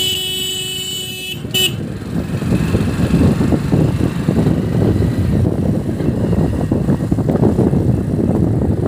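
A two-wheeler's horn sounds one steady blast of about a second and a half, then a brief second toot. After that there is a loud rush of wind buffeting the microphone over the motorcycle's running and road noise as it rides along.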